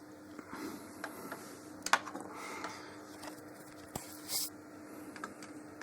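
Faint handling noises while a kerosene lamp is being lit: a few sharp clicks, and a short scratchy hiss about four seconds in.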